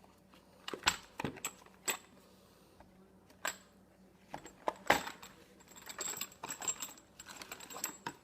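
CO2 cartridges being handled and taken out of their pack: scattered sharp clicks and knocks, then a quick run of small rattling clatter about six seconds in.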